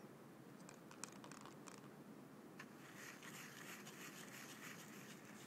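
Near silence with faint scratching and a few light clicks.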